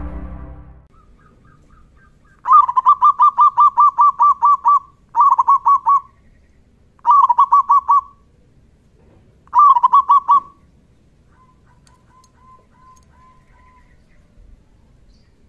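Zebra dove (perkutut) singing in four runs of quick, repeated cooing notes: the first about two seconds long with a dozen notes, then three shorter runs, followed by a fainter run of softer notes. Music fades out in the first second.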